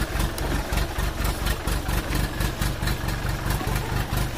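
Farm tractor's diesel engine running at a steady low speed, its exhaust beating in even pulses, heard up close from on board as the tractor drives along a rough dirt track.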